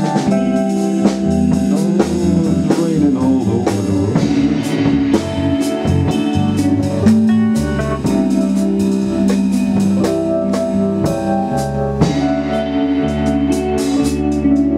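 Live band playing a slow soul-blues ballad: electric guitar lines over a drum kit, in an instrumental passage without singing.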